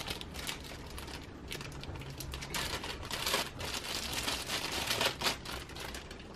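Clear plastic bag crinkling and rustling in irregular bursts as it is handled and pulled off a small part by hand.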